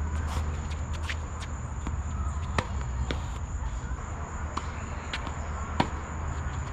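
Tennis rally on a hard court: about eight sharp knocks of the ball off the rackets and the court, the loudest near the end from the near player's racket stroke. A steady high insect buzz runs underneath.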